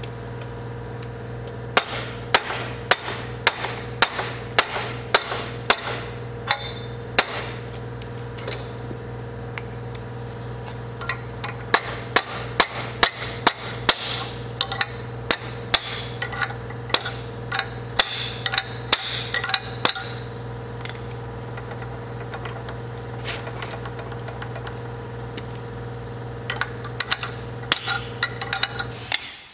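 Hammer blows on a tube bender's die, pounding out a bent aluminium tube that is stuck tight on it. The blows come in runs of quick strikes, about two a second, with short pauses, and a few more near the end.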